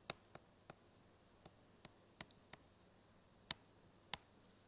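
Stylus tip tapping on a tablet screen during handwriting: about nine faint, sharp clicks at an irregular pace as the pen lands and lifts between strokes.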